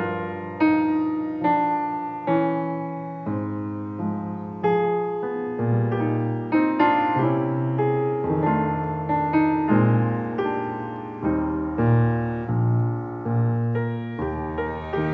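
Piano music: notes and chords struck about every three quarters of a second, each fading before the next.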